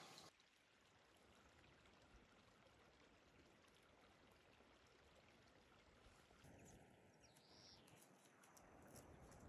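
Near silence: faint outdoor ambience, an even hiss, with one faint high chirp about seven seconds in.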